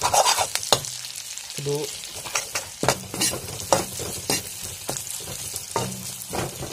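Sliced onions and spices sizzling as they fry in hot oil, stirred with a metal spatula that scrapes and clicks against the pan again and again.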